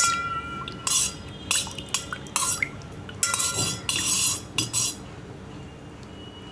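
Steel spoon stirring juice in a stainless steel bowl: a quick series of clinks and scrapes against the metal with a ringing tone, stopping about five seconds in.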